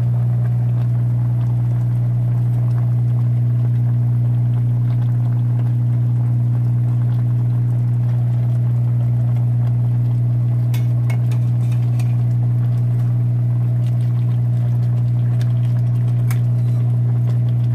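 Steady low electrical hum from a kitchen appliance, with a few light clinks of a metal spoon against the cooking pot about two-thirds of the way through and again near the end.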